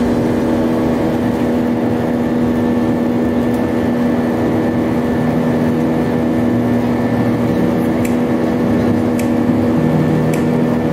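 Steady engine and airflow drone of an Airbus A320 in flight, heard inside the cabin at a window seat beside the engine: an even rushing noise with a constant low hum running through it.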